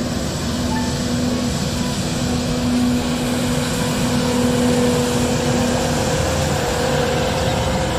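Street sweeper truck working, its engine and vacuum fan running with a steady noisy rush and a low hum while the gutter broom sweeps the asphalt.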